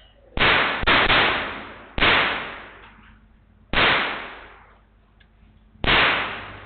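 Firearm gunshots at a shooting range: five loud shots at uneven intervals, two in quick succession near the start, each ringing out in a long echo that dies away over about a second.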